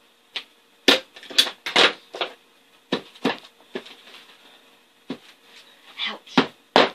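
A run of sharp knocks as staples are driven into a four-wheeler seat base: a hand staple gun firing, then a hammer tapping the staples down, the taps coming quicker, about two or three a second, near the end.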